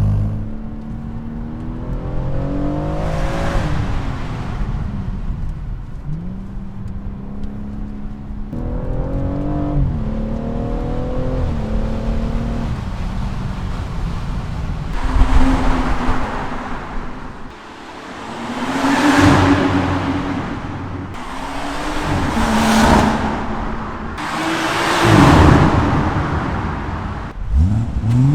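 BMW turbocharged straight-six engine being revved and accelerated hard: long rising pulls through the first half, then four loud rev swells that rise and fall about three seconds apart, and a quick rising rev near the end.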